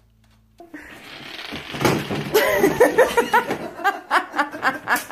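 Near silence, then from about a second in a person laughing hard in quick, rhythmic repeated laughs that run on to the end.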